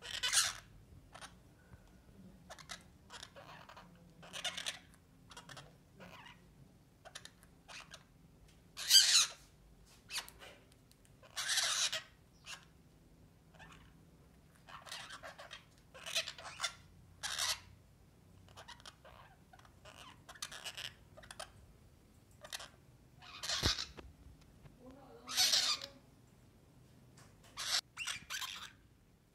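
Orange-fronted parakeets giving short, harsh squawks and chatter at irregular intervals, a handful of them much louder than the softer calls between.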